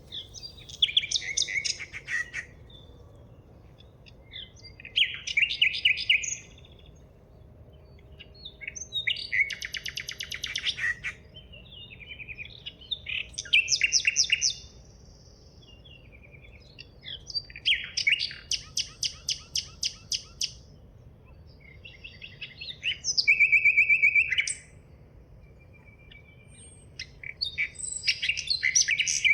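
A songbird singing in repeated phrases of fast trills and chirps, about seven phrases with short pauses between them.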